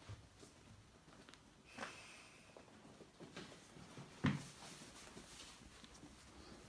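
Ferrets scuffling about on a fabric blanket: faint scattered rustles and bumps, with one louder thump about four seconds in.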